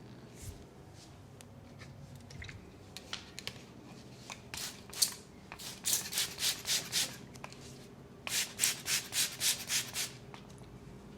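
Hands rubbing in quick rhythmic strokes, about four to five a second, in two runs in the second half, with lighter scattered scratches and one sharp click about five seconds in.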